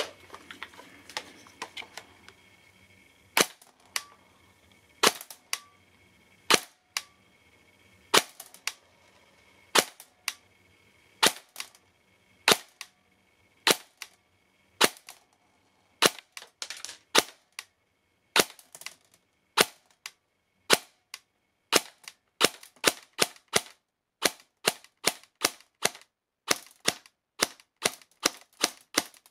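Single shots from a battery-powered airsoft electric gun (AEG) fired one at a time through a chronograph, about seventeen sharp pops. They come roughly every second and a half at first and speed up to about two a second near the end.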